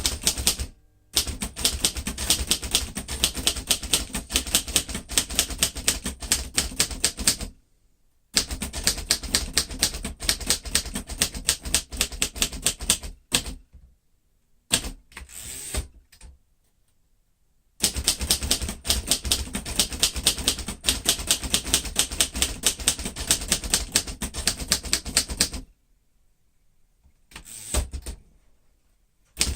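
1947 Royal Quiet Deluxe manual typewriter being typed on: long runs of rapid keystrokes with the typebars striking the platen, broken by a few pauses of a second or more.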